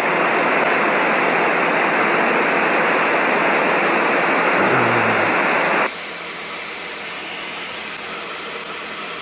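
Aircraft radio static hissing loudly and steadily in the headset with the squelch open, then cutting off abruptly about six seconds in as the squelch closes again. A quieter, steady cabin noise remains.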